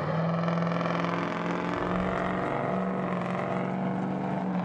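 A race truck's engine running at a steady speed, a droning note that steps up slightly in pitch about two seconds in.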